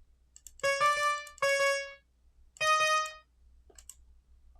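Synthesizer playing short keyboard-like notes with an electric-piano tone: three clean, steady-pitched notes, each about half a second, in the first three seconds. Faint clicks follow near the end.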